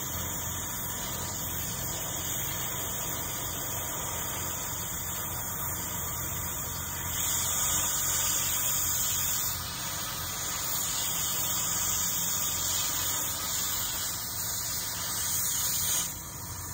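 Cutting torch hissing steadily as it cuts metal, over a steady low engine hum. The hiss grows louder about halfway in and drops off sharply near the end.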